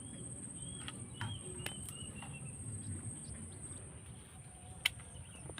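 A steady high-pitched insect drone with short bird chirps in the first couple of seconds, and a few sharp clicks, the loudest a little before the end.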